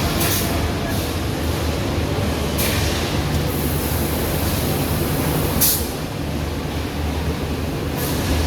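Roof-tile painting production line running: a steady machine hum and rumble, with short hissing bursts breaking in four times.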